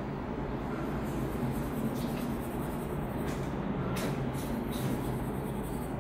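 Master Art coloured pencil scratching on paper as it shades in a drawing, in uneven strokes, over a steady background hum and hiss.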